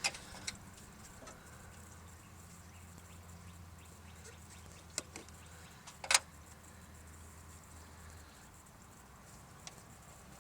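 Quiet handling noises: a few light clicks and taps of hands working on plastic vacuum lines and a vacuum tee, the sharpest about six seconds in, over a faint low hum.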